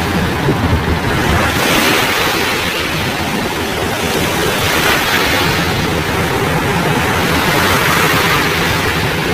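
Steady noise of a large helicopter hovering low over the sea while its underslung bucket takes on water, mixed with surf and wind buffeting the microphone.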